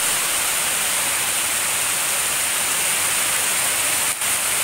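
Heavy rain falling steadily: a dense, even hiss of a downpour on flooded ground and grass, with a brief dip in loudness about four seconds in.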